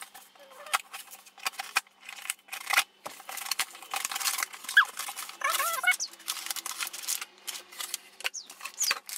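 A small cardboard shipping box being opened by hand: packing tape tearing and cardboard flaps scraping, a dense run of sharp crackles and rustles, with a few short squeaks around the middle.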